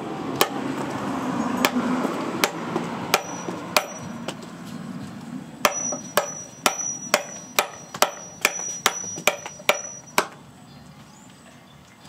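Machete chopping through a dry stick held upright on a wooden log, each stroke a sharp chop of the blade into the wood. A handful of spaced chops come first, then a faster run of about a dozen, roughly two a second.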